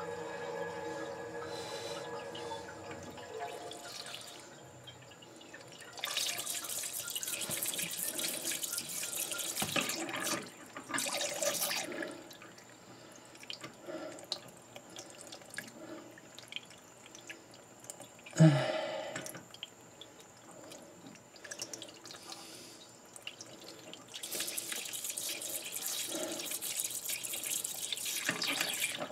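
Water spurting and hissing from the end of a toilet supply hose in three spells, because the angle shutoff valve won't shut off all the way. A faint whining tone fades out in the first few seconds, and a single sharp knock about halfway through is the loudest sound.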